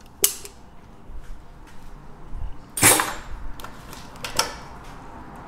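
Workshop handling sounds at a galvanized steel gutter: a sharp click just after the start, a louder brief clatter about three seconds in, then a few lighter knocks, as the sealant tube and tools are put down and picked up.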